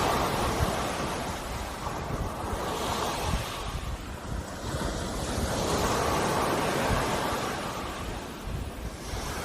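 Sea waves breaking and washing onto the shore, the surf swelling and easing twice, with a low rumble beneath.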